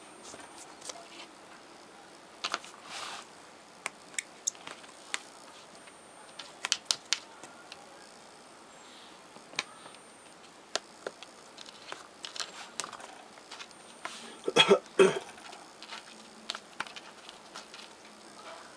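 A cat pawing and clawing at interlocking floor mats and a wooden floor while chasing a feather wand toy: scattered clicks, taps and scratches, with a louder flurry of scratching about three-quarters of the way through.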